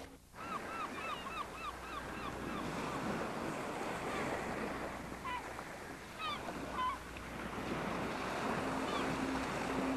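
Water washing steadily, with a quick run of short arched bird calls, several a second, near the start and a few more calls midway. A low steady tone comes in near the end.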